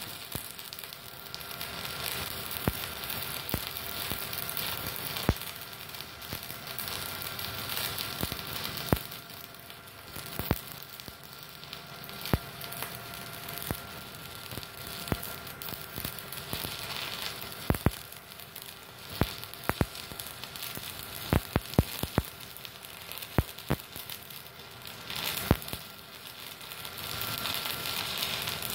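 Stick-welding arc from a MultiPro Solid 125 A-ST IGBT inverter welder, burning a 4 mm electrode at the machine's 125 A maximum. A steady crackling sizzle runs throughout, broken by frequent sharp pops that come thickest in the second half.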